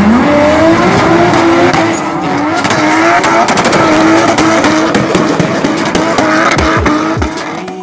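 A drift car's engine revs hard, its pitch wavering up and down with the throttle, while the tyres squeal and smoke as the car slides through a corner. The sound fades near the end.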